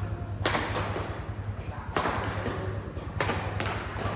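Badminton rackets striking a shuttlecock during a doubles rally: sharp hits about half a second in, at two seconds, and twice in quick succession a little after three seconds, each with a short echo in a large hall, over a steady low hum.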